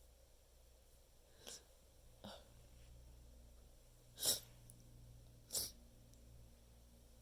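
A person sneezing: two fainter short bursts, then two loud, sharp sneezes about a second and a half apart.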